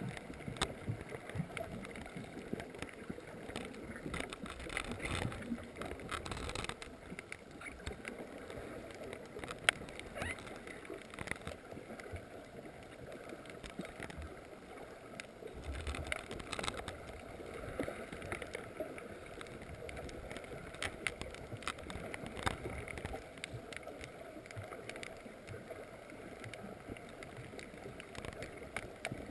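Underwater ambience recorded by a GoPro lodged in a coral on the sea floor: a steady wash of water noise with many scattered faint clicks.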